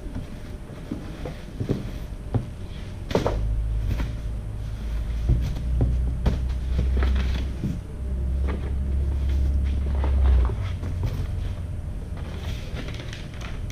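Cardboard boxes and packaged parts being handled: scattered knocks, clicks and rustles. A heavy low rumble comes in about three seconds in and stops after about ten seconds.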